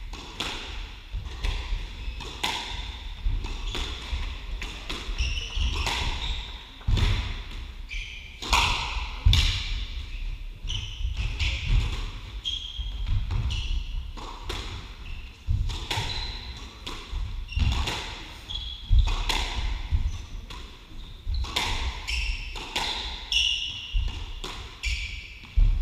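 Squash rally: the ball cracks off the rackets and the court walls at irregular intervals, mixed with sneakers squeaking briefly on the wooden court floor and heavy footfalls.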